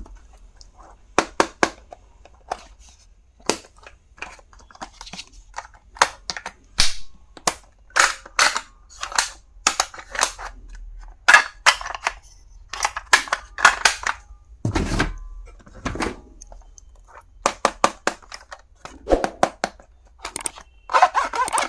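Plastic stationery items and packaging being handled: irregular sharp clicks, taps and snaps, several to a second, with a duller thud about fifteen seconds in.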